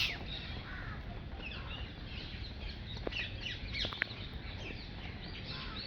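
Many small birds chirping, with short high calls overlapping continuously, over a steady low background rumble.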